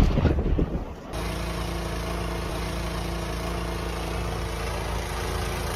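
Wind buffeting the microphone, then from about a second in an engine running steadily at an even speed.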